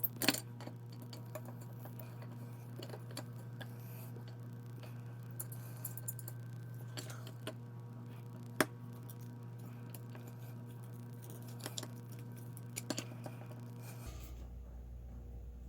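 Scattered small clicks and taps of screws being started by hand into the housing of a Zoeller sump pump, with one sharper click near the middle, over a steady low hum.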